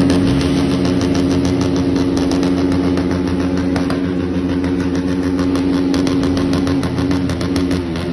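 Motorcycle engine revved up and held at steady high revs, its pitch dipping and climbing again near the end.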